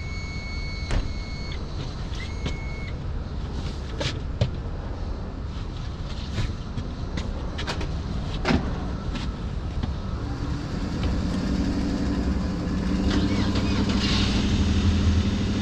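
Tow vehicle's engine running as a boat on its trailer is backed down a launch ramp. A few short electronic beeps sound near the start, with scattered knocks and clunks. About ten seconds in, a steadier motor hum comes in and grows louder.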